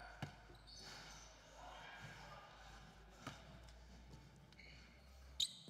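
Faint basketball bounces on a hardwood gym floor: a few single thuds spaced seconds apart, the last one the loudest.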